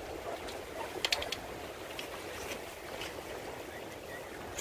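Steady wash of channel water against jetty rocks, mixed with breeze, with a quick run of sharp clicks about a second in.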